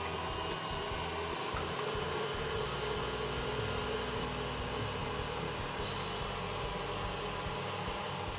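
Electric stand mixer running steadily at high speed, its whisk beating egg whites and sugar into a meringue.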